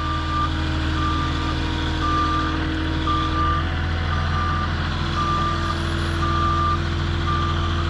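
Forklift's reversing alarm beeping about once a second, each beep about half a second long, over its engine running steadily.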